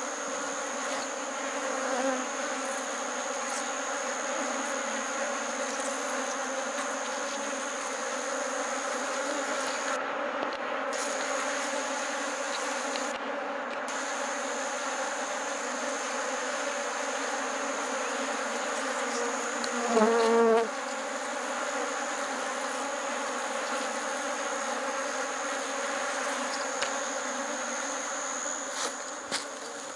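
A steady hum of many honeybees buzzing in and around an opened hive. About twenty seconds in, a louder buzz with a wavering pitch lasts about a second, and a few knocks come near the end.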